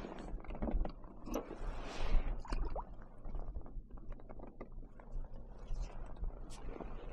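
Water sloshing and splashing with scattered small clicks and knocks, loudest about two seconds in, over a steady low rumble.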